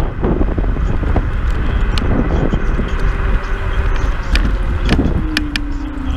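Wind rumbling on the microphone while riding a Kaabo Mantis Pro electric scooter, with scattered sharp rattles and clicks. A motor whine comes in about halfway through and slides down in pitch near the end.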